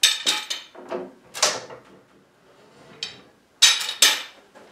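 Iron pipe clamps clanking and knocking as they are handled and laid down on a concrete floor: a run of sharp, irregular knocks, the loudest two near the end.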